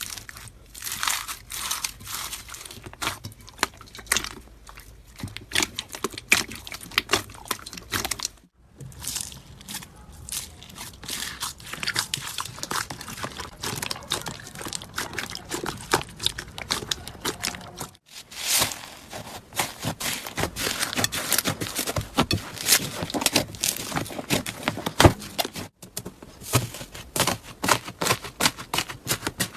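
Slime being squeezed and worked by hand: a dense run of small crackling pops and clicks. The sound breaks off briefly three times, at about 8, 18 and 26 seconds in, where one clip cuts to the next.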